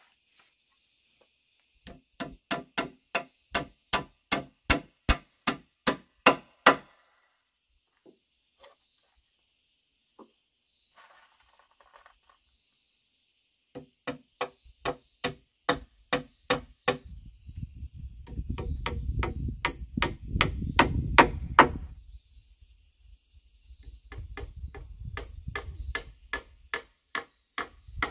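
Rapid, evenly spaced strikes of a hand tool on a wooden roof-frame pole, about three a second, in two runs with a pause in between. A low rumble comes in under the second run, and a steady high insect drone runs beneath it all.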